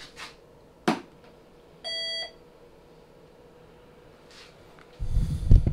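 A CRT SS 7900 CB transceiver switched on at its power knob: a sharp click about a second in, then a short electronic power-up beep. Near the end come several loud low thumps.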